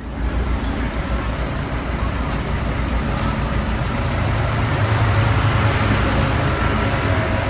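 City street traffic with a double-decker bus's engine running close by: a steady low rumble that grows a little louder past the middle.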